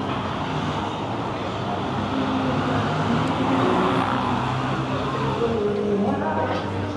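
City street traffic with a vehicle passing close by, its engine and tyre noise swelling to a peak midway and easing off again.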